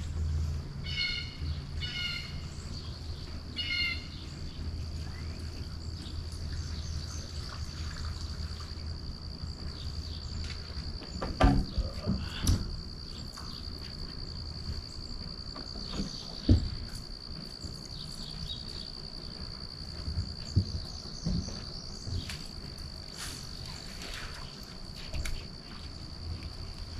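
A steady, high-pitched insect trill, with three short bird calls in the first few seconds. A low hum underlies it, fading out about halfway through and returning near the end, and a few sharp knocks come around 11 to 12 seconds in and again near 16 seconds.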